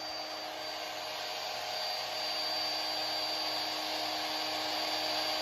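Electric power sander running steadily: a constant motor hum under a hiss, with the wood being sanded.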